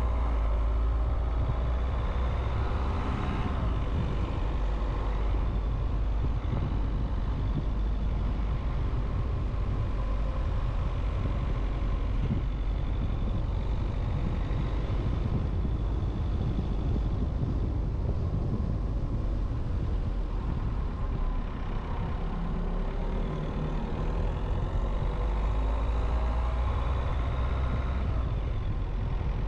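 Steady low rumble of a car driving on city streets: engine and road noise with no sharp events.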